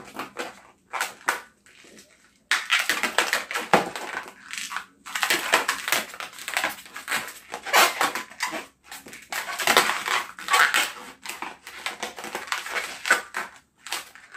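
Long latex modelling balloon rubbing and squeaking under the hands as it is twisted into bubbles, in quick irregular strokes that come thick and nearly continuous from about two and a half seconds in.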